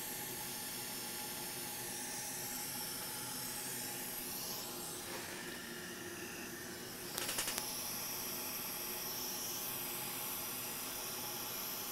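Hot air rework station blowing a steady hiss of hot air onto a Wi-Fi module to melt the solder beneath it. A few brief clicks come about seven seconds in.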